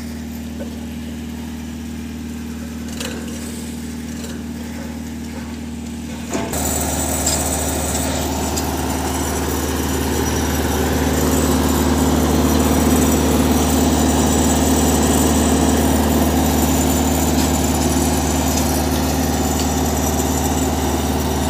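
Engine-driven arch-sheet roll-forming machine on a truck running with a steady hum; about six seconds in it turns suddenly louder and harsher, with a rough metallic noise over the hum, and stays so.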